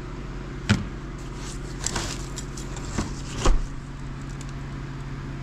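Several sharp metal clinks and knocks as a steel part is worked off the end of a Detroit Diesel 53 series camshaft and handled, the loudest about a second in and about three and a half seconds in, over a steady low hum.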